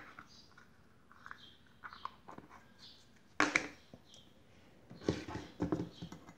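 Handling noises at a workbench: scattered small clicks and rustles of a drone motor and its wires being handled, with a sharper knock about three and a half seconds in and a quick cluster of knocks about five seconds in.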